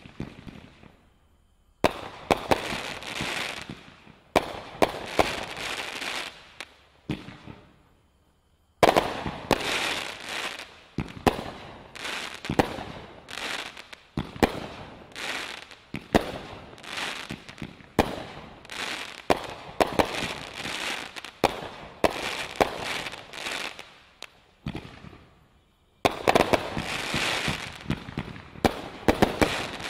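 Brothers 'Wheeler Dealer' 500-gram, 32-shot fireworks cake firing: a rapid string of sharp shots, each trailed by a second or so of noise as the shells break. There are brief lulls about 8 and 25 seconds in.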